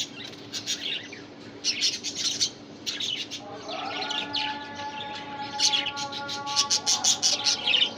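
Budgerigars chirping in rapid bursts of high, scratchy tweets, several runs spread through the clip.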